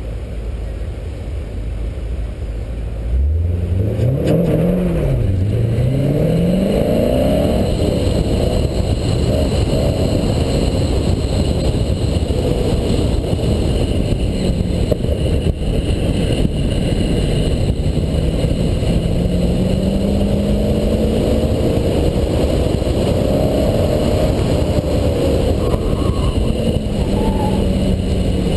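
Chevrolet Corvette C5 Z06's LS6 V8 running at the start line, then launching hard about three seconds in: the revs climb, drop at one upshift and climb again. It then pulls on through an autocross run, the revs rising and falling with the turns.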